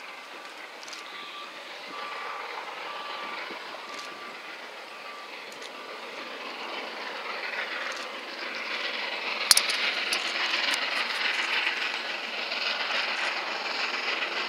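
Steam locomotive hauling a train at speed, its exhaust and running noise growing steadily louder as it approaches. One sharp click about nine and a half seconds in.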